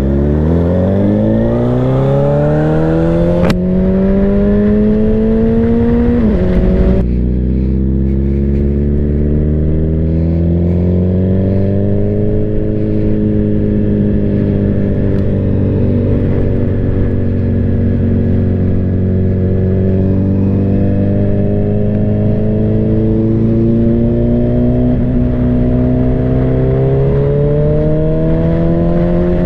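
Sport bike engine heard from on board under way: it accelerates with the pitch rising steeply, drops at a gear change about seven seconds in, then holds a fairly steady cruise and climbs again near the end. Wind rush runs underneath.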